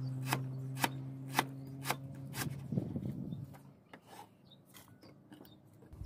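Cleaver chopping lemongrass stalks on a wooden chopping board: about five sharp strokes, roughly two a second, followed by a short scrape as the slices are gathered up. A steady low hum in the background stops about three and a half seconds in.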